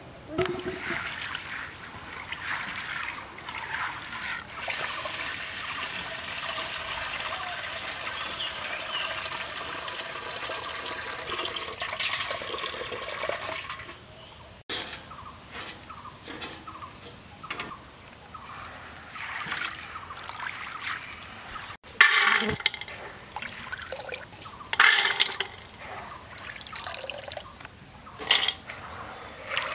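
Water pouring steadily into a metal pot of gram seeds (chickpeas), then, about halfway through, a hand swishing and splashing the seeds in the water to wash them, with several louder splashes near the end.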